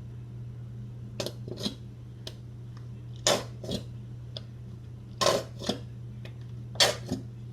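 A spoon scraping and clinking against a jar and mixing bowl while scooping mayonnaise, in four pairs of short strokes, over a steady low hum.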